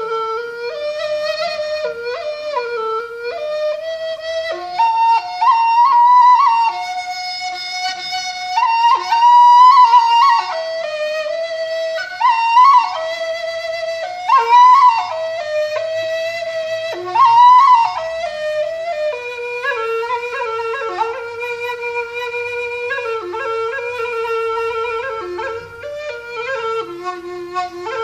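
Balinese suling, a bamboo end-blown flute, played solo: a continuous, ornamented melody with quick grace-note flicks, rising several times to louder high notes.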